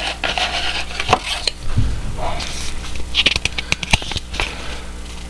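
Handling noises: rustling with scattered sharp clicks and taps, heaviest about three seconds in.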